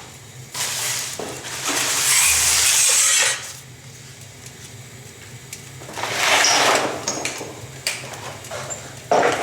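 Tools and parts being shuffled and moved about, with clinking and scraping in three noisy stretches separated by quieter pauses.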